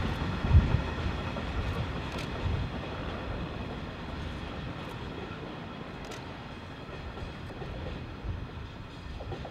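Rake of EWS bogie hopper wagons rolling past, their wheels rumbling and knocking on the track, with a sharp thump about half a second in. The sound fades as the last wagon passes and the train draws away.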